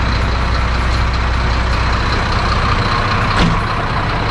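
Mercedes-Benz 1620 truck's diesel engine running steadily through a straight exhaust, with a single knock a little over three seconds in.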